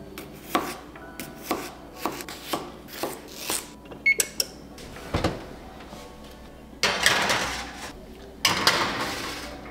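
Chef's knife chopping potatoes on a plastic cutting board, about two cuts a second, then a short beep from an electric range's keypad as the oven is set. Later a thud and two noisy rushes of about a second each as a baking tray is slid into the oven.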